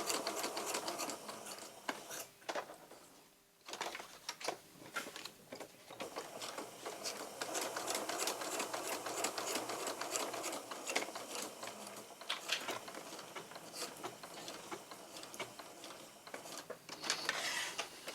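Sewing machine stitching around the edge of a paper postcard in rapid needle strokes. It stops briefly about three seconds in, then runs again.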